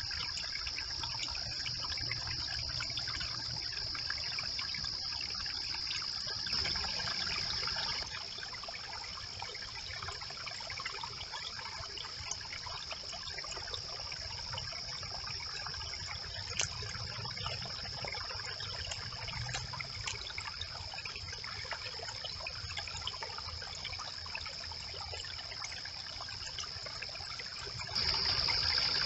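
Brook water trickling steadily past a beaver dam, with a steady high-pitched hum over it. The sound drops a little about eight seconds in and grows louder again near the end.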